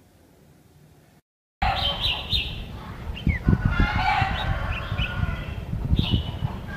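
A caged male red-whiskered bulbul chattering in short chirps and trills while it spreads its wings and tail in a courtship display. The calls start abruptly about a second and a half in, over a steady low rumble.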